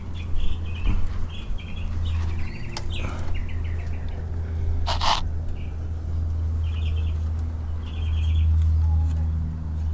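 Small birds chirping in short, rapid trills every second or so, over a steady low rumble. A brief hiss cuts in about halfway through.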